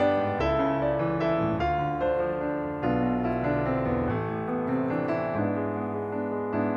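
Background music: a piano-led instrumental piece playing a melody over sustained chords.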